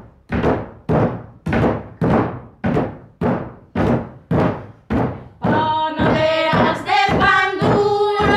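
Fists thumping a wooden tabletop in a steady rhythm, nearly two beats a second, as the accompaniment to a panaderas bread-kneading work song. About five and a half seconds in, women and girls start singing over the beat.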